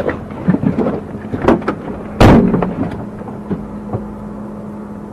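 A loud, sudden thud about two seconds in, fading over about half a second, amid smaller scattered knocks and crackles over a steady low hum.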